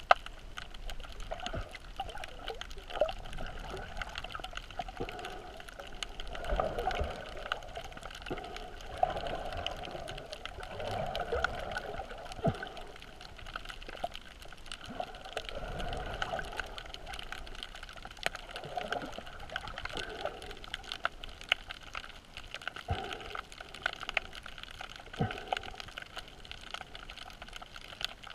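Muffled underwater water noise picked up through a GoPro's waterproof housing while snorkelling, a steady wash that swells every few seconds, with many faint scattered clicks.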